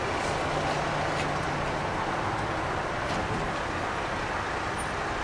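Steady road traffic noise from a street, with a few faint footsteps.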